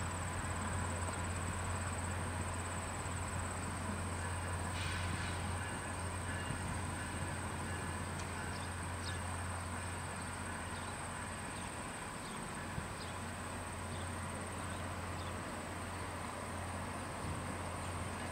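Diesel locomotive of a two-car passenger train, an F40PH-2, running as the train pulls away: a steady low drone that fades slightly. A steady high-pitched insect whine runs over it.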